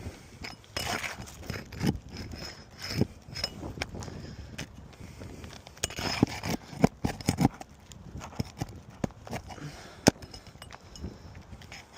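Irregular scraping, crackling and sharp knocks of hands and tools working on asphalt roof shingles, with one loudest knock about ten seconds in.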